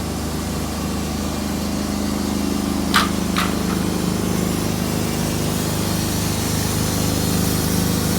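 An engine running steadily at a constant speed, with two short, sharp hissing clanks about three seconds in, half a second apart.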